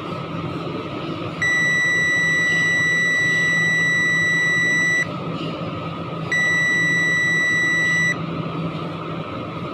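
An electronic beeper sounding two long, steady high-pitched beeps, the first lasting about three and a half seconds, the second about two, over a steady background hum.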